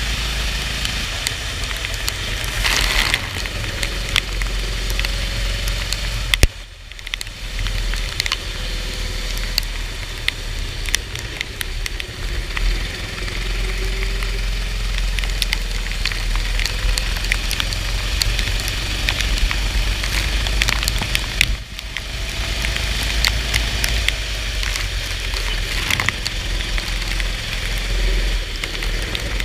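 Go-kart engine running on a soaked track, under a steady rush and crackle of rain and water spray. The sound drops away sharply twice, about six seconds in and again near twenty-one seconds.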